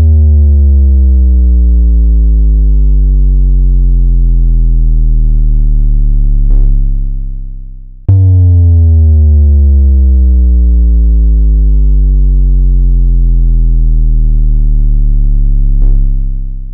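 Bass-test track of deep synthesizer sub-bass, two long loud notes each held for about eight seconds and sliding slowly down in pitch, the second starting about eight seconds in, made to shake speakers for a vibration test.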